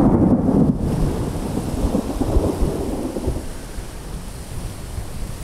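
A strong gust of storm wind buffeting the microphone: a loud low rumble that is strongest in the first second and then eases off.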